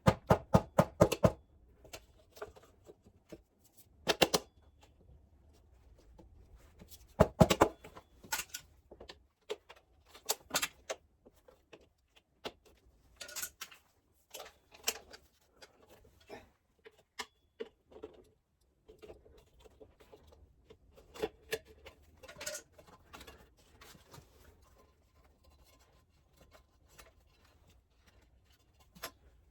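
Irregular clicks, taps and knocks of hand tools and parts being handled during motorcycle tyre and wheel work. Quick rattling clusters of strikes come at the very start, about four seconds in and about seven seconds in, and lighter scattered clicks fill the rest.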